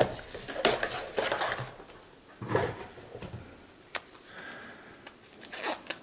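Packaging being handled: a cardboard box and a paper sleeve rustling and sliding, with a few light knocks and one sharp click about four seconds in.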